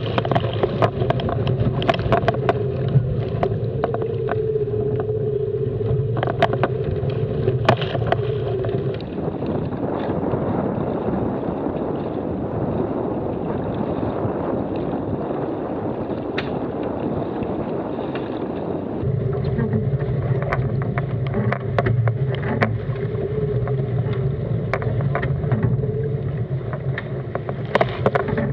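Water and wind rushing past a racing keelboat sailing hard, with spray and waves splashing over the heeled deck in sharp hits and a steady low hum. About nine seconds in it changes to a smoother, even rush of water and wind. About nine seconds later the hum and splashing return.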